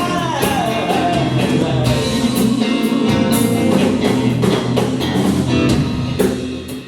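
Live band music: a singer's long note sliding down in pitch in the first second, over electric guitar and drum kit, with the band playing on.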